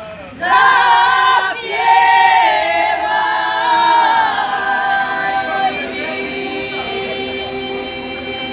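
A group of women singing a traditional folk song unaccompanied, in close voices. About six seconds in, the singing drops to a quieter, long held chord.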